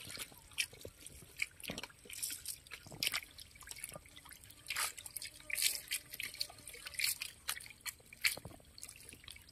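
Irregular drips and small splashes in shallow muddy water, a few sharp ones every second.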